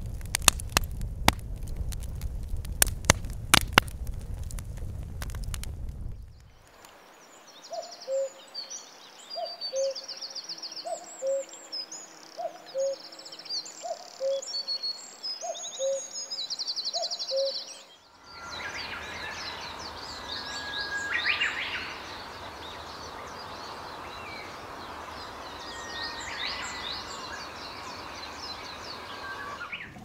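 Campfire wood crackling with sharp pops, then after a cut, birdsong: a low two-note call repeated about every second and a half under high chirps and trills. From about 18 s a steady rushing hiss with more bird calls.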